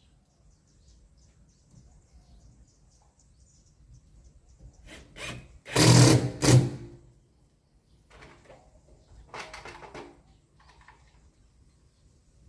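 Cordless drill running in two short bursts, driving screws to fix a timber batten across a ceiling-board joint: a loud burst of about a second around six seconds in, and a quieter one near ten seconds.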